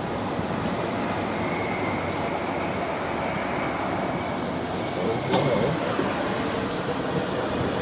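Steady car and road noise, with a faint thin whine for a few seconds and a short click about five seconds in.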